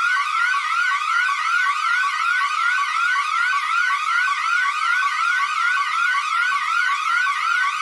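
Emergency alert system alarm tone: an electronic siren-like tone that sweeps upward again and again, nearly three rising sweeps a second, loud and unbroken.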